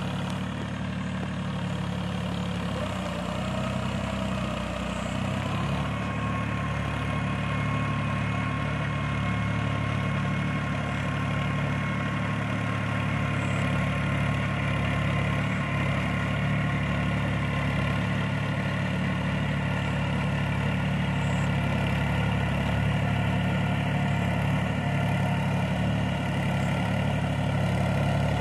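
Tractor engine running steadily while working a flooded paddy field, growing gradually a little louder.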